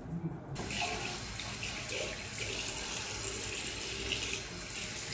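Water from a tap running steadily into a bathroom sink, turned on about half a second in, as facial cleanser is rinsed off.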